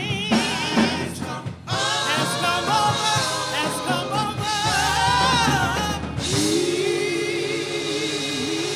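Gospel singing with instrumental accompaniment. The voices stop about six seconds in, leaving a sustained chord held by the instruments.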